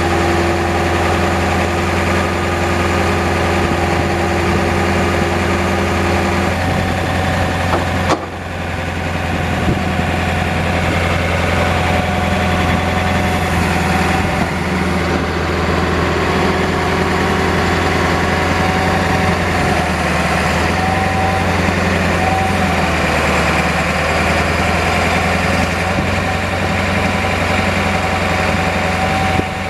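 A 1992 Ford F450's 7.3-litre V8 diesel engine idling steadily, with a steady whine over it for the first six seconds. There is a short break about eight seconds in, after which the idle goes on.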